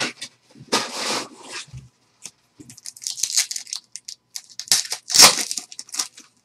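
Foil wrapper of a Bowman Sterling baseball card pack crinkling and being torn open by hand, in several short rustling bursts, the loudest about five seconds in.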